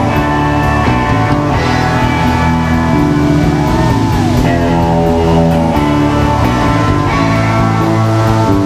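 Live band playing amplified electric guitars over a bass line, with a steady beat of cymbal ticks; one guitar note bends up and back down about four seconds in.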